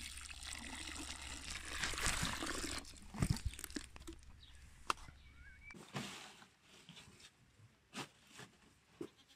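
Water sprinkling from the rose of a small plastic watering can onto a seed tray, an even hiss for about three seconds, followed by a few scattered knocks and clicks.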